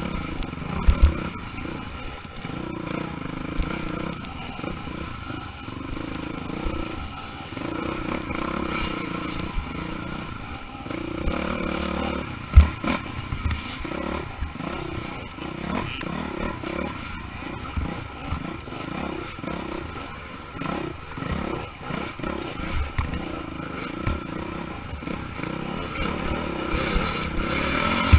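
Off-road motorcycle engine running hard under the rider, its revs rising and falling over rough trail, with the bike's chassis clattering. Sharp knocks from bumps stand out twice about a second in and once, loudest, near the middle.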